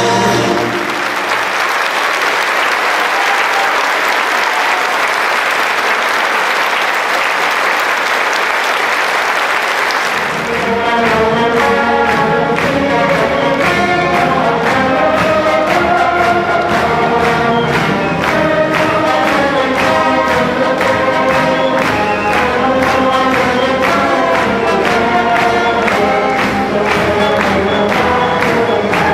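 Audience applauding for about ten seconds, then a choir with instrumental accompaniment starts a new piece with a steady beat.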